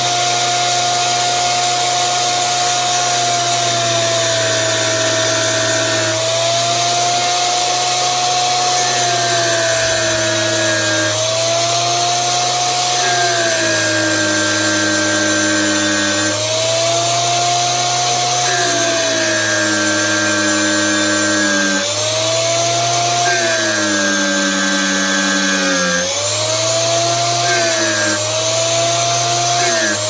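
An electric chainsaw sharpener's grinding wheel runs continuously, grinding a nail nick into a steel pocket-knife blade. Its motor whine sags in pitch and a harsher grinding sound joins each time the wheel is lowered into the steel. This happens about six times, with each pass lasting a couple of seconds.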